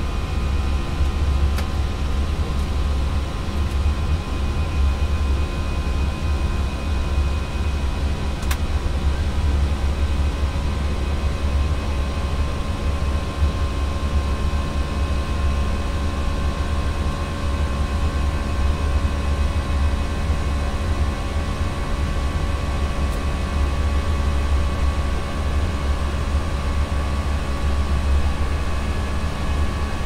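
Steady in-flight noise inside an Airbus A320 cockpit: a deep rumble of airflow and engines with several steady hums over it.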